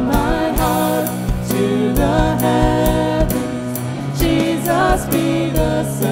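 Live worship band playing between sung lines: a steady drum beat of about two beats a second over sustained keyboard and bass chords, with brief wordless sung phrases near the start and about two-thirds through.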